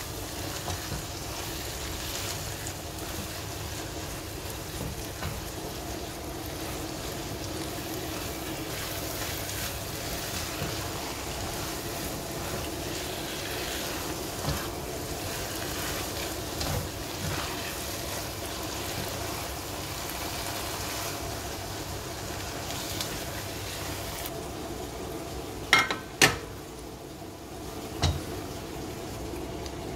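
Okra stir-fry sizzling in a nonstick wok as a silicone spatula stirs it, over a steady low hum. Near the end the sizzle thins out and there are three sharp knocks, the spatula against the pan.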